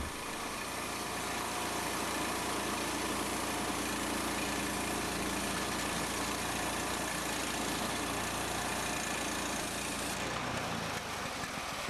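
Engine of a portable band sawmill running steadily.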